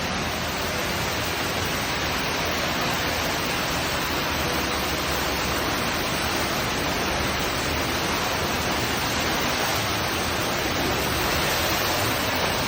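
Steady rushing roar of an underground cave waterfall, falling water echoing in the cave.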